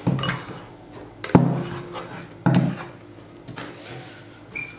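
Three dull knocks about a second apart as a glass bowl is worked against a worktop and a plastic scraper scrapes risen yeast dough out of it onto the floured counter, with softer rubbing between the knocks and a brief high squeak near the end.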